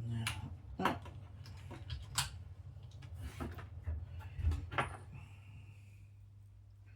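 About five sharp clicks and knocks of small parts being handled and set down, over a low steady hum.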